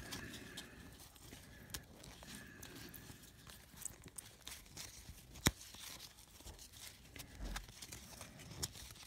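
Baseball cards being thumbed through one by one: faint slides and flicks of card stock against card stock, with one sharper click about five and a half seconds in.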